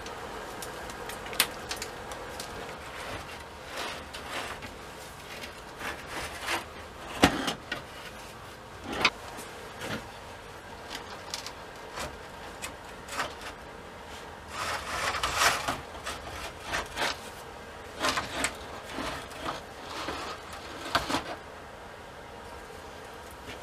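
Rusty steel frames and a glass panel of a fireplace door being handled and shifted on a wooden workbench: scattered clanks, knocks and scrapes, with a longer scraping stretch about fifteen seconds in.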